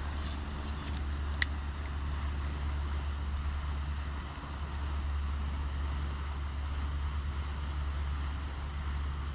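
Steady low rumble of distant road traffic, with one sharp click about a second and a half in.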